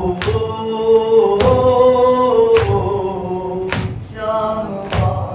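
Men chanting a Shia mourning noha in long sung lines, with matam: palms striking chests in time, about one strike a second, five in all.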